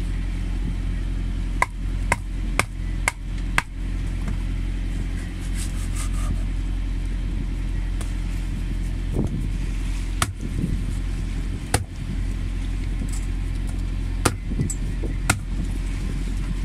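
Long knife chopping a great barracuda into steaks, the blade knocking sharply on the wooden board beneath: five quick chops about half a second apart, then a few more spaced out later. A steady low engine drone runs underneath.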